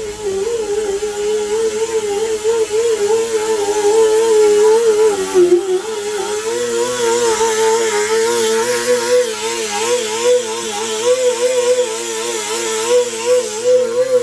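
A machine's motor whirring steadily, its pitch wavering up and down the whole time, growing a little louder about four seconds in.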